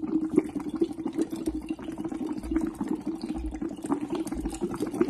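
Steady bubbling as breath is blown through a plastic tube into water: a bubble-PEP breathing exercise for lung rehabilitation.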